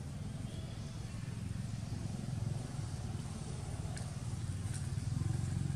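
Steady low rumble of a motor vehicle engine running, with a faint click about four seconds in.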